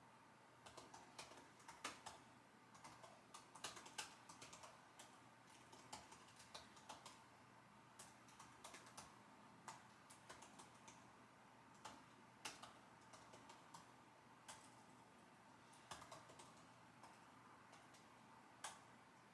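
Computer keyboard typing: irregular runs of soft key clicks with short pauses between bursts of words.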